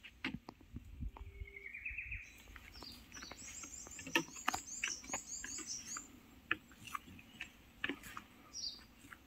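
Birds calling. A short rising call comes in the first two seconds, a rapid run of high chirps fills the middle, and short falling notes come near the end. Scattered sharp clicks and knocks run through it all.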